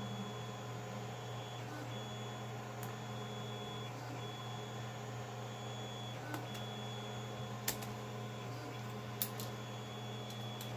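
3D printers running: a steady machine hum with tones that stop and restart every second or two as the stepper motors move. Two sharp clicks come near the end.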